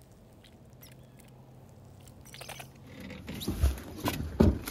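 Faint scattered clicks, then from about three seconds in louder rustling with two low thumps.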